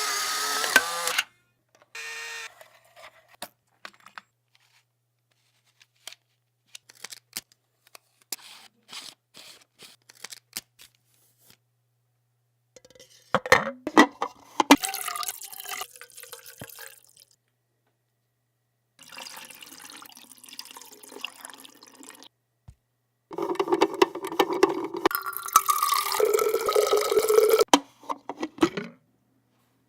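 A string of separate short sound effects with silent gaps between them: a noisy burst, scattered clicks and taps, then longer passages of hiss mixed with steady tones.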